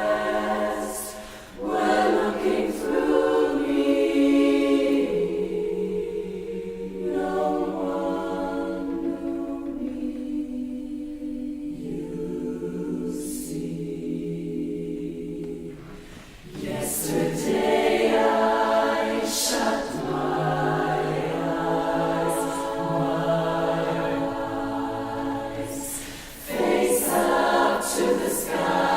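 Barbershop chorus singing a cappella in close harmony, holding sustained chords. The singing drops to a softer passage after about five seconds, then swells louder again about seventeen seconds in, with brief breath breaks between phrases.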